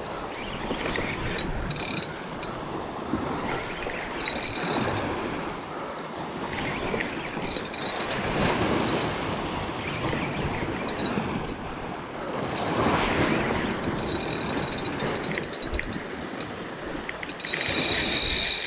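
Sea surf washing against the rocks with wind on the microphone, swelling and easing, and the clicking of a Shimano Stella 8000 spinning reel. Near the end the reel's drag starts giving line with a steady high buzz as the hooked tuna pulls.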